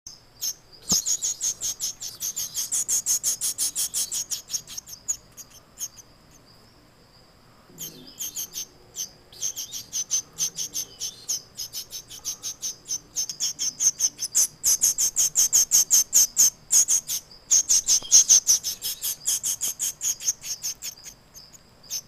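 Nestling bird peeping: a long run of rapid, high-pitched chirps, several a second, with a pause of about two seconds near a third of the way in. These are the insistent calls of a hungry chick.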